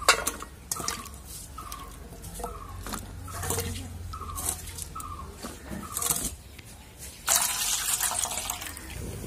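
Water splashing and dripping as wet raw mango cubes are scooped out of a steel bowl of water and dropped onto a steel plate. About seven seconds in, water is poured off from a small steel bowl. A faint short falling chirp repeats about every two-thirds of a second through the first six seconds.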